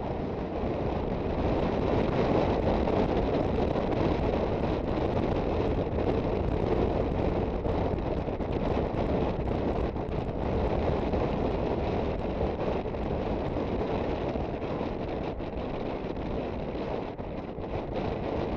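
Wind rushing over the microphone of a moving Aprilia Sportcity Cube 250 scooter, a dense, steady rumble with the scooter's engine and road noise blended in underneath.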